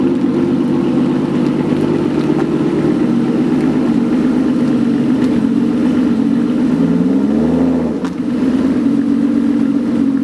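Aston Martin V12 engine idling steadily, with a short, gentle rise and fall in pitch about seven seconds in, like a light blip of the throttle.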